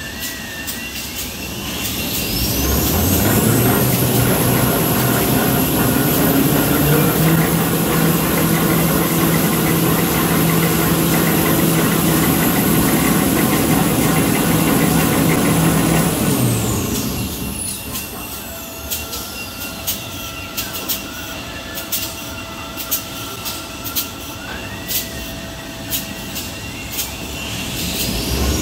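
Toilet paper and kitchen towel rewinding machine running through a speed cycle. Its drives whine steeply upward as it speeds up about two seconds in, hold a steady loud run with a low hum, then wind down together after about sixteen seconds. A series of clicks and knocks follows, and the whine climbs again near the end as the machine speeds up once more.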